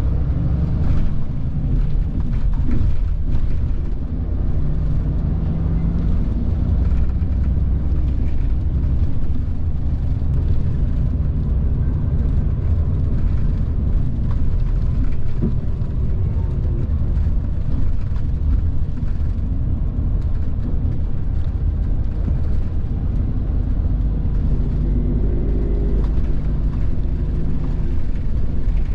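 Mitsubishi Fuso Aero Ace coach's diesel engine and road noise heard from inside the cabin while driving: a steady low rumble whose engine note rises and falls a little with speed.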